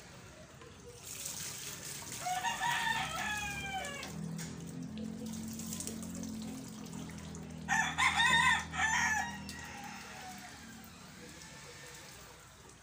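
A rooster crowing twice, each crow a long drawn-out call of about two seconds, the second louder, over a low steady hum in the middle.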